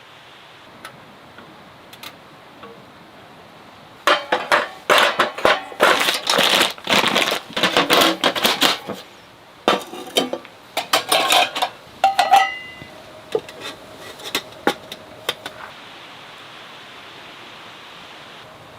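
Metal cookware and utensils clattering and scraping in quick irregular knocks for about eight seconds, ending with a brief metallic ring, over a steady faint hiss.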